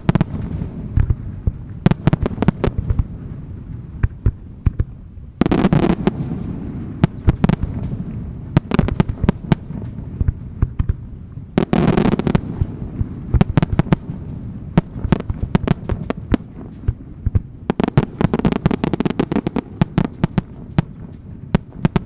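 Aerial firework shells bursting in rapid succession: dense overlapping booms and sharp cracks over a low rolling rumble. The barrage swells into heavier salvos about five seconds in, again around twelve seconds, and again about eighteen seconds in.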